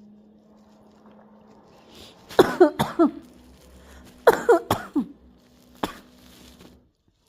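Galah imitating a human cough: two bouts of three or four quick hacking coughs with falling pitch, about two seconds apart, followed by a single sharp click.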